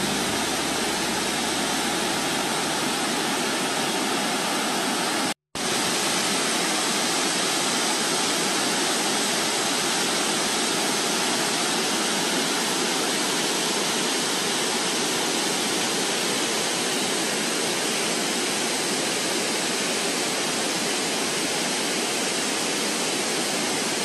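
Monsoon-swollen mountain stream rushing over granite rapids, a steady loud wash of white water. It cuts out for a split second about five seconds in.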